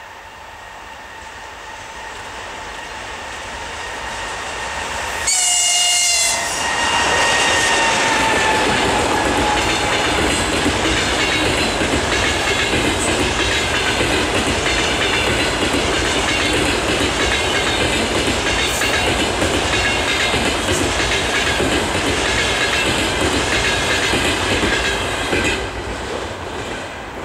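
EP20 electric passenger locomotive and its train approaching, growing steadily louder, then sounding its horn in one loud blast of about a second. The locomotive and the double-deck passenger coaches then pass close by in a steady loud rolling rush with wheel clatter, which falls away near the end as the last coach goes by.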